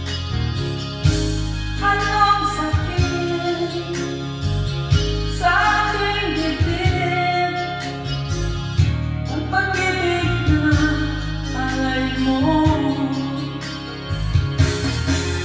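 A song with a female lead voice singing over bass, drums and guitar with a steady beat.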